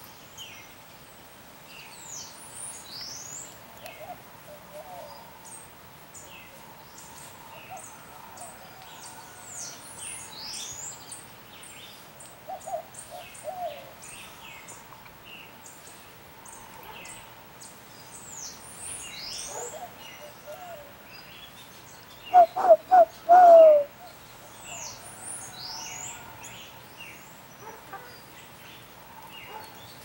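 Small birds chirping in quick high notes throughout, over a dove cooing: a few soft low notes here and there, then four loud low coos about three quarters of the way through.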